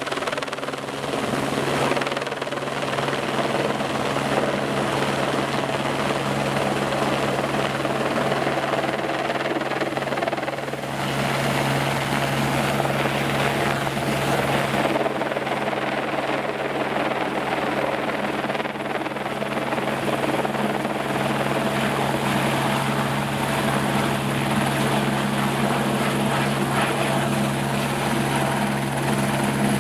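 Helicopter in flight, its rotor and engine running with a steady hum.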